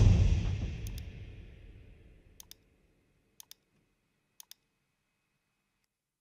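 Electronic background music fading out over the first two seconds, then four sharp double clicks of computer input, each pair a quick press and release, about a second apart.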